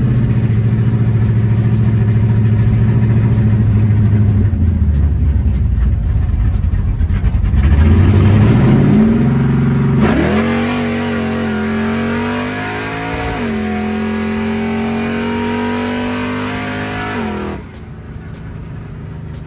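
Car engine pulling under way: a steady drone that drops, then climbs in pitch as the car accelerates, steps through changes in pitch midway, and falls away suddenly near the end as the throttle is lifted.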